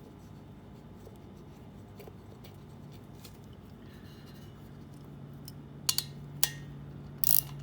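Handling of a ratchet wrench and socket extension: two sharp metallic clicks about six seconds in, then a quick cluster of clicks near the end, over a steady low hum.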